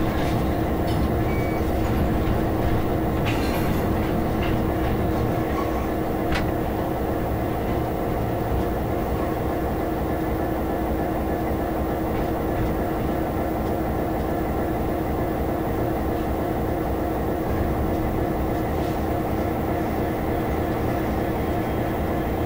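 Class 66 diesel locomotive heard from inside its cab, its EMD two-stroke V12 engine running with a steady drone and hum as the train rolls slowly along. A couple of sharp clicks sound about three and six seconds in.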